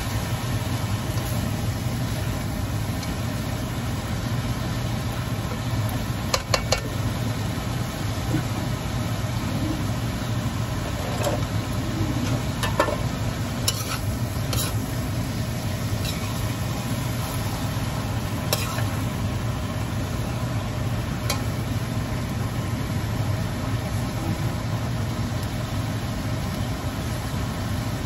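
Cabbage and green peppers sizzling in a steel wok as they are stir-fried, with a few sharp clicks and scrapes of the cooking utensil against the wok, mostly in the first two-thirds. A steady low hum runs underneath.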